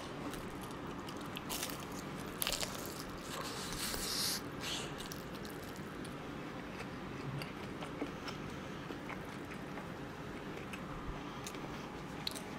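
Close-up biting and chewing of fried chicken: a few sharp crunches in the first four seconds or so, then quieter chewing.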